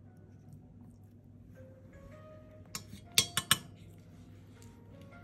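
Steel forceps clinking against a stainless-steel kidney dish, a quick run of sharp metallic taps about three seconds in, three of them loudest, as maggots pulled from a cat's mouth are knocked off into the dish.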